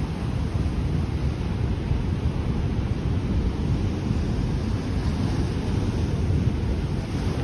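Ocean surf rushing against a rocky shore, with wind buffeting the microphone in a heavy, steady rumble.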